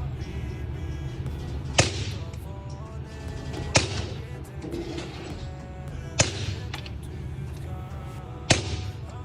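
Four suppressed shots from a Walther .22 LR, evenly spaced about two seconds apart, each a sharp crack with a short tail, heard over background music.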